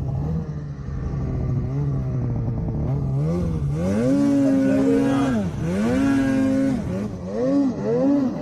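Snowmobile engine revving up and down over and over, its pitch climbing, holding, then dropping, with shorter quick blips near the end.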